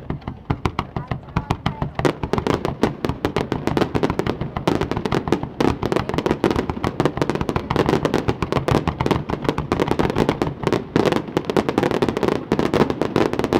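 Aerial fireworks bursting in a rapid, dense barrage of many cracks and bangs a second, which stops abruptly near the end.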